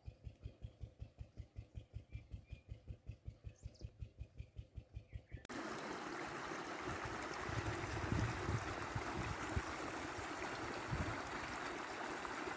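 Faint, even thudding of a 12 hp single-cylinder diesel engine at about five beats a second. About five seconds in it gives way to a steady gurgle of running water in a small channel.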